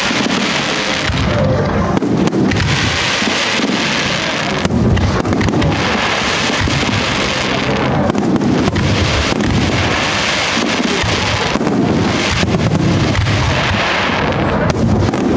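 Aerial firework shells of a Spanish professional display bursting in a continuous barrage, loud booms overlapping with dense crackling, with no pause.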